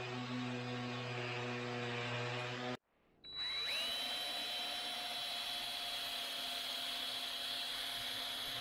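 Random orbital sander running on the wooden tabletop, a steady hum that cuts off abruptly about three seconds in. After a short silence a cordless drill spins up with a rising whine and runs steadily, boring into a wooden brace.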